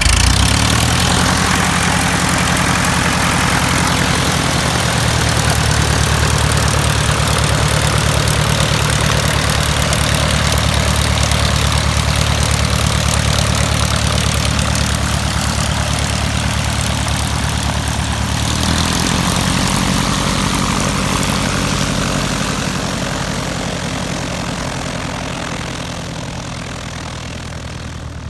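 Van's RV-8's piston engine and propeller running at taxi power, loud and close at first. The engine note shifts about two-thirds of the way in, then the sound fades as the airplane moves away.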